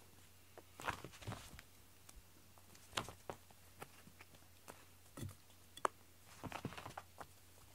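A cat batting and pouncing at a yarn rope toy on carpet: irregular soft taps and thumps of paws with brief brushing rustles of the rope.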